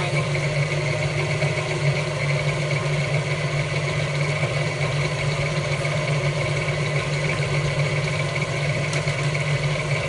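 Tilt-head electric stand mixer running on high speed, its beater whipping creamed butter, sugar and eggs in a stainless steel bowl: a steady motor hum with a thin high whine over it.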